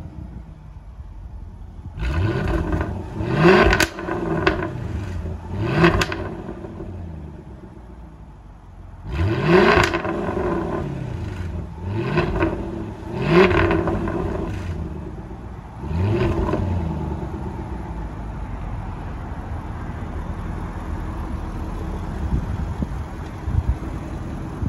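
2016 Jaguar F-Type R's supercharged 5.0-litre V8 blipped through its quad exhaust while standing still: about seven quick revs in the first sixteen seconds, several ending in a sharp crack. After that it settles to a steady idle.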